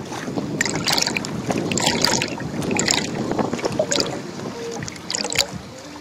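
Wind buffeting the microphone over the wash of sea water, with short hissing surges about once a second.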